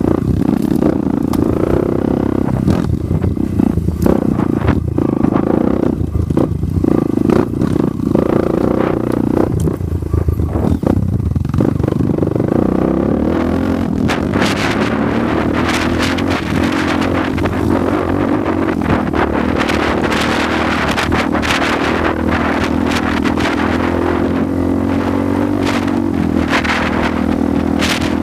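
Off-road motorcycle engine running under way on a dirt trail. Over the first half it is broken by many sharp clattering knocks from the bike jolting over rough ground. In the second half the engine holds a smoother, higher note at speed.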